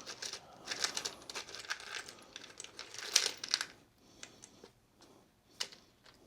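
Small loose items clicking, rattling and rustling as a hand rummages through a small box of odds and ends, busiest for the first few seconds, then only a few scattered clicks.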